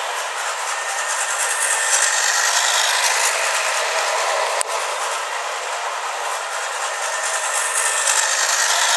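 Battery-operated toy bullet train running on its track: a steady whir and rattle of its small motor and cars, with a single click about four and a half seconds in.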